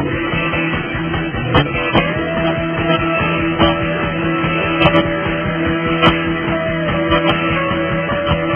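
Background rock music with guitar, playing steadily.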